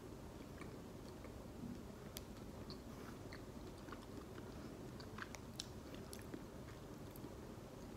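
A person chewing a piece of dark chocolate with the mouth closed: faint, with small scattered clicks.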